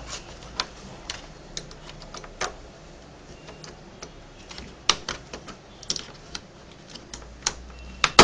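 Plastic panel above the keyboard of an HP 540 laptop being pried off with a pry tool: irregular plastic clicks and snaps as its tight clips are worked loose, a few louder ones in the second half.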